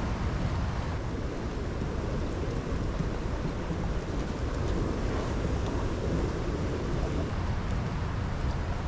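Wind buffeting the microphone: a steady, uneven low rumble with a hiss over it.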